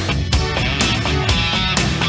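Anime theme song played by a rock band, with electric guitar over drums keeping a steady beat.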